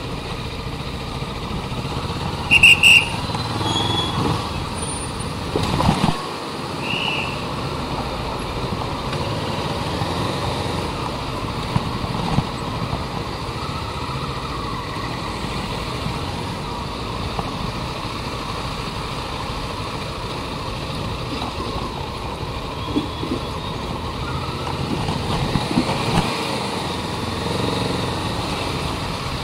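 Motorcycle engine running with steady road and wind noise, picked up by a chest-mounted action camera. There are two short high beeps a few seconds in.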